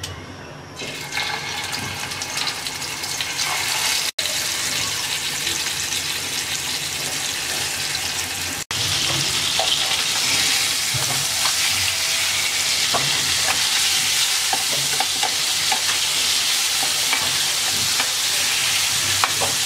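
Rui fish steaks sizzling as they fry in hot mustard oil in a nonstick pan, with a few light spatula scrapes as the pieces are turned. The sizzling builds about a second in as the fish goes into the oil.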